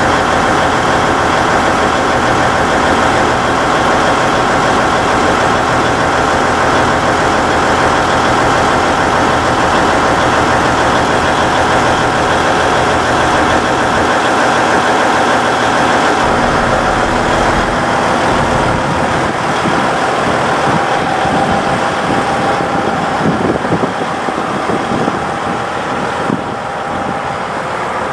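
Diesel engines of a KiYa 95 measuring train running steadily at idle, a constant engine hum with held tones. In the second half the low rumble turns more uneven.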